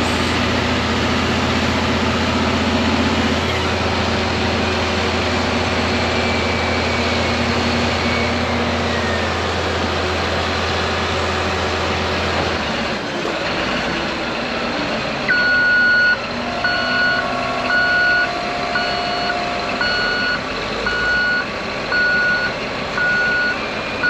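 Diesel engines of a Cat D11 bulldozer and an articulated dump truck working hard under load during a tow recovery. A low steady drone drops away about halfway through, and then a reversing alarm beeps about once a second.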